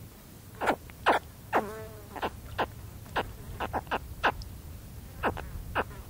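Baby spectacled caiman giving close-up contact calls: about a dozen short chirps, each sliding down in pitch, coming in an irregular run, with one longer falling call about one and a half seconds in. Faint low wind noise underneath.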